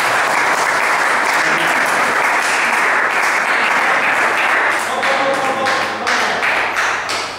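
Spectators applauding a won point, dense clapping that thins out near the end, with a voice calling out about five seconds in.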